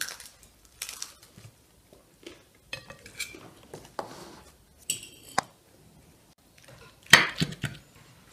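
Porcelain dinner plates clinking and knocking against each other and the table as they are handled, in scattered short clicks with a brief ringing clink or two. The loudest clink comes about seven seconds in.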